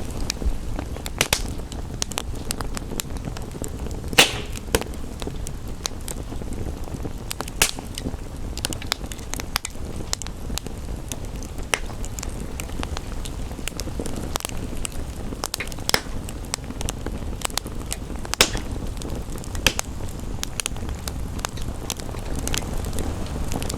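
Wood fire crackling, with irregular sharp pops and snaps over a steady low rumble; a few louder pops stand out, about four seconds in, near eight seconds and near eighteen seconds.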